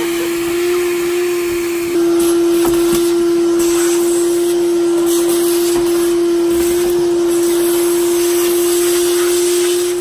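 Wet/dry shop vacuum running with a steady hum as its hose sucks dirt off the floor of a combine cab. It gets a little louder about two seconds in, and there are a few faint clicks.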